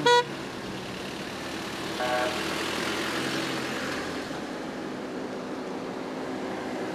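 Cars of a convoy running and moving slowly off on a dirt road, a steady engine and tyre noise. A short, loud beep sounds right at the start and a fainter short beep about two seconds in.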